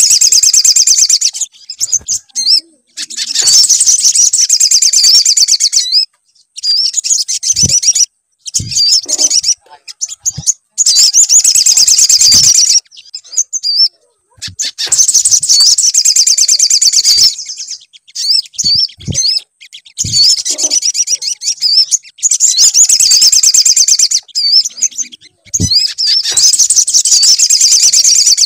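Sogon (sogok ontong) songbird singing fast, high-pitched twittering phrases in bouts of one to three seconds, broken by short pauses: a lure recording used to prompt a caged sogon to sing. A few short low thumps sound between the phrases.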